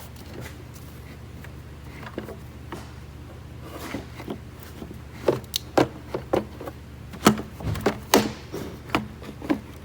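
Plastic air filter housing and filter being fitted by hand: a run of sharp knocks and clicks in the second half as the parts are pushed into place, over a steady low hum.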